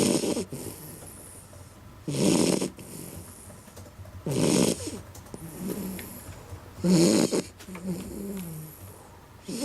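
A beagle snoring in deep sleep: four loud snores about two and a half seconds apart, with softer pitched breaths between them.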